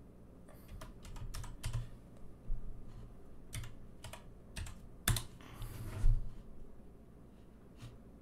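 Typing on a computer keyboard: irregular keystrokes with short pauses, the sharpest clack about five seconds in, followed by a dull thump about a second later.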